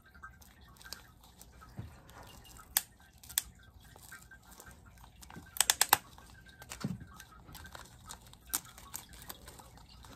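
Paper wrapping crinkling and tearing as it is pulled off a plastic nursery pot, with scattered sharp crackles and a quick run of snaps about six seconds in.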